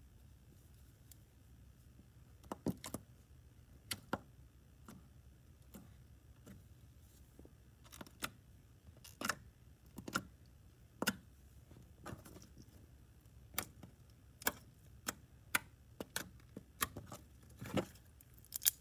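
Sticky clicks and small pops of green gel slime, the insides of a mesh squeeze ball, as a plastic doll and fingers are pressed into it and pulled away. The clicks come singly at irregular intervals and grow more frequent in the second half.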